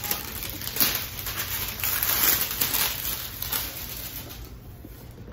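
Packaging crinkling and rustling as it is handled, in a quick run of short bursts that die down about four and a half seconds in.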